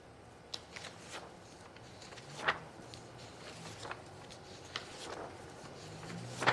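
Dead air in a TV news studio: quiet room tone with scattered soft clicks and paper rustles from the anchor handling his pen and script pages at the desk, the loudest a single tap about two and a half seconds in.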